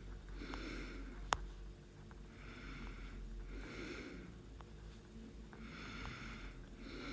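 A person breathing audibly through the nose close to the microphone, a soft breath every second or two. There is one sharp click about a second in.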